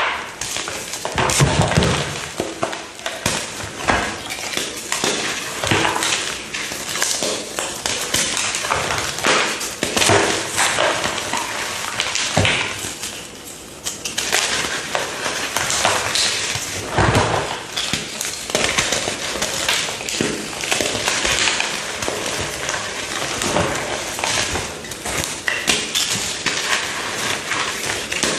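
A brittle yellow material pressed and crushed by hand in close-up, crunching with many snaps, crackles and pops. The crackling eases briefly about halfway through, then picks up again.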